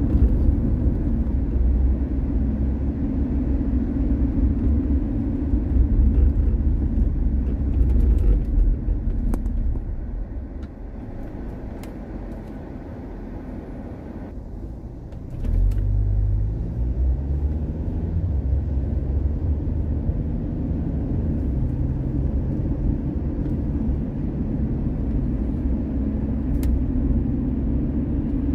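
A car driving with a steady low rumble of road and engine noise. About ten seconds in it quietens for some five seconds, then about fifteen seconds in the engine note rises as the car accelerates away, and it settles back into an even cruise.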